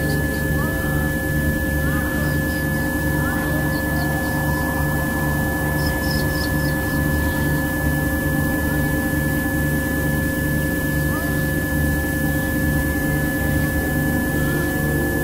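Binaural-beat tone track: several steady pure electronic tones layered over a low drone, with a low tone pulsing on and off about twice a second. Faint short gliding chirps sit in the background of the mix.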